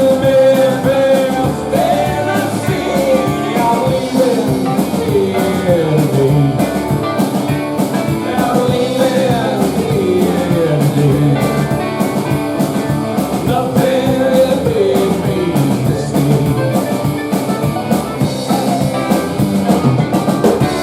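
Live rock band playing a song, with singing over electric guitar and a drum kit whose cymbals keep a steady beat.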